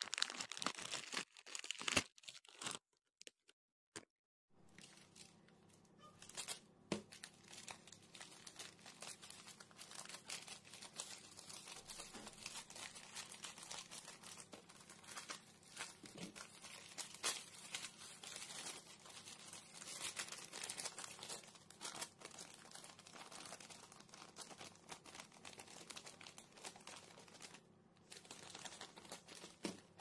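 Plastic packaging crinkling and tearing as a parcel is unwrapped by hand, a dense run of small crackles with a short pause about three seconds in.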